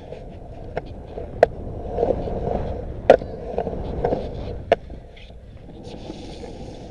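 Skateboard wheels rolling over a concrete skatepark surface: a steady rumble broken by four sharp clacks in the first five seconds.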